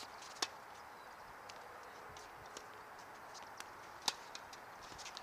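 Tennis ball struck by a racket, two sharp pops about four seconds apart, with fainter scattered ticks between them over a steady faint hiss.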